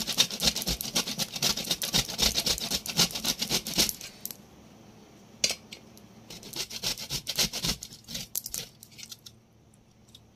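Food being grated by hand on a stainless steel box grater: quick, repeated rasping strokes. They pause briefly around the middle with a click or two, then start again and grow fainter toward the end.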